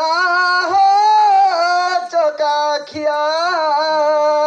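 A single voice singing a folk song in long, wavering held notes, loud, with short breaks between phrases.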